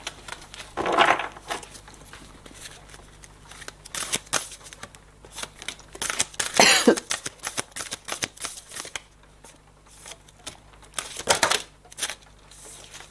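A deck of oracle cards being shuffled and handled: a run of light card clicks and flicks, with three louder rustling bursts about a second in, midway and near the end.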